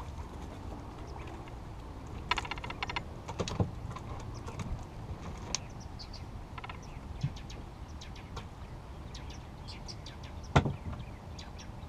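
Clicks, taps and knocks of fishing gear and a landing net being handled on a small boat's deck, with a quick rattling run of clicks a couple of seconds in and a sharper knock near the end.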